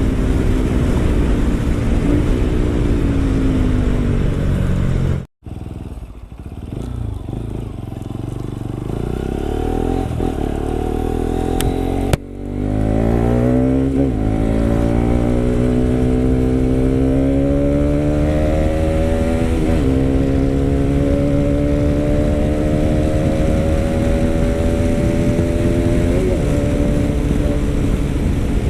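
Bajaj/Kawasaki RS200 single-cylinder engine running through an aftermarket Akrapovic M1 exhaust. Its pitch falls, the sound cuts out abruptly about five seconds in, and after a second brief dip near twelve seconds the engine note climbs steadily as the bike accelerates.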